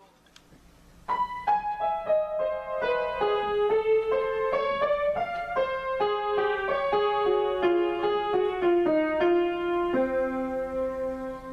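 Solo grand piano playing an improvised melody: after a quiet first second, single notes enter about a second in and step generally downward at a few notes a second, over a sustained lower note near the end.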